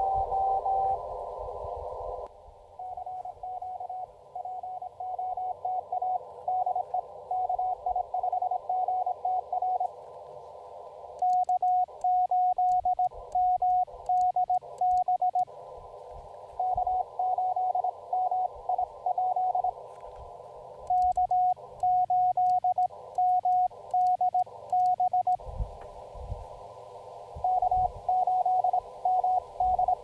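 Morse code (CW) tones from an Elecraft KX2 transceiver. Fainter keyed signals sit in a narrow band of static hiss. Twice, for about four seconds each, louder, clean keying breaks in with the hiss gone, as when the operator sends and the sidetone replaces the receiver.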